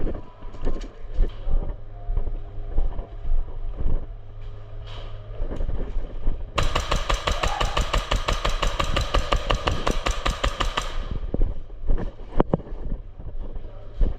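Airsoft gun firing a long full-auto burst, a rapid even rattle of about four and a half seconds starting a little past halfway. Before it come scattered sharp clicks and knocks over a low rumble, and a few single knocks follow after it.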